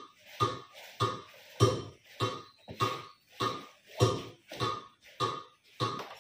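Short, sharp sounds repeated in a steady beat, a little under two a second, keeping time for the group's movement.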